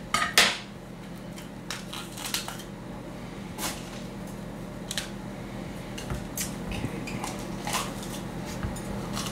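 Chef's knife cutting through a red bell pepper on a wooden cutting board, with a sharp knock or two in the first half second. Then soft clicks and rustles as the pepper is pulled apart and its seeds and core picked out by hand, over a steady low hum.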